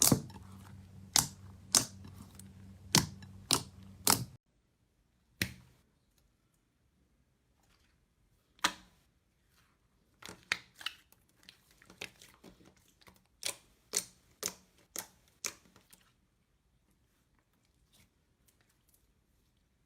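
Slime being squeezed and worked by hand, giving sharp, irregular clicking pops. A low hum sits under the first few seconds and cuts off suddenly; a second run of pops comes later.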